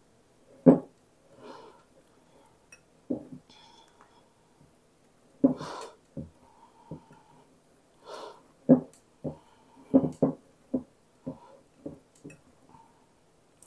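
Metal spoon stirring crumbly sugar cookie dough in a glass mixing bowl: irregular knocks and scrapes against the glass, the sharpest about a second in.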